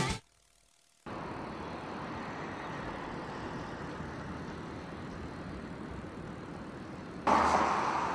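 Outdoor background noise: a steady, even rush with no distinct tones, starting about a second in after a moment of silence and getting louder near the end.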